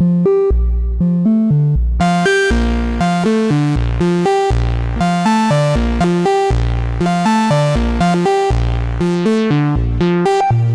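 Moog Subsequent 25 analog synthesizer playing a repeating eighth-note sequence of short pitched notes, about four a second. About two seconds in the filter opens and the notes turn bright, then they darken again toward the end.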